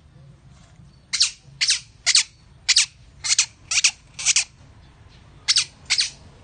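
Otter chirping: a string of short, high-pitched squeaky calls, each falling steeply in pitch. Seven come in quick succession, then after a short pause two more near the end.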